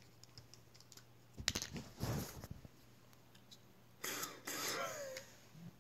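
Handling clicks and short rustles. About four seconds in comes the sudden hiss of a metered-dose asthma inhaler puff, followed by a long inhalation through it with a wavering, whistling wheeze from asthma-narrowed airways.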